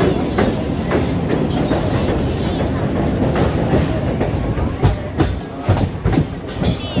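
Train running on the rails with a steady rumble. In the second half the wheels clack over rail joints several times, about twice a second.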